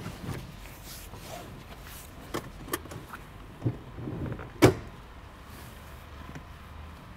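A driver settling into a car seat: rustling and a few separate clicks and knocks, the loudest a sharp click about four and a half seconds in.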